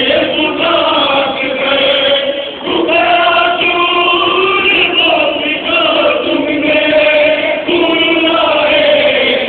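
A crowd of mourners chanting a Muharram lament (nauha) together, many voices in unison on drawn-out notes.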